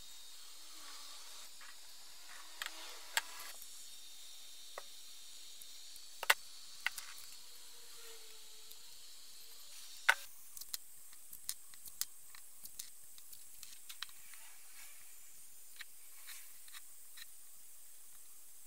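Masking tape being pressed onto and trimmed off cast-iron vice parts by hand: faint rustling and scratching with scattered sharp clicks and taps as the parts are handled on a wooden bench. The two loudest clicks come about a third of the way in and just past halfway, followed by a run of small quick ticks.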